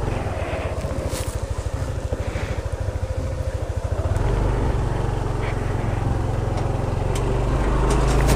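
Yamaha NMAX scooter's single-cylinder engine idling with an even low pulse, then pulling away slowly about four seconds in, its drone growing steadily louder.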